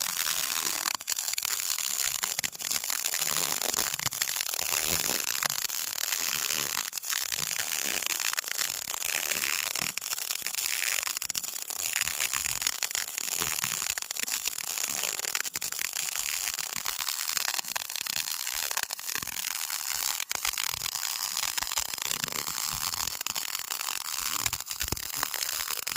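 CO2-shielded MIG welding arc burning without a break while laying a root weld, a steady dense crackle of fine rapid clicks over a hiss.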